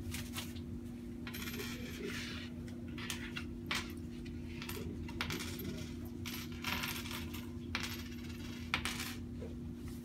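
Coins clinking in a series of short, irregular jingles, as loose change is handled and set down on a checkout counter, over a steady low electrical hum.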